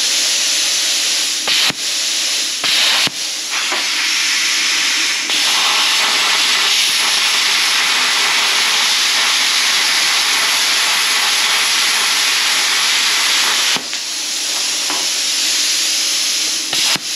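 Bestarc BTC500 plasma cutter, fitted with a pilot-arc torch, cutting through steel plate: a loud, steady hiss from the plasma arc and its air blast. It breaks off briefly a few times in the first few seconds and again near the end.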